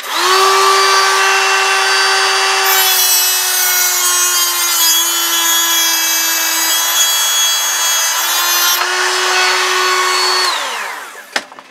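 Heat gun switched on to shrink heat-shrink tubing over a soldered wire joint. Its motor whines steadily with a rush of air that grows louder through the middle stretch, where the pitch dips slightly. About ten and a half seconds in it is switched off and winds down with a falling whine.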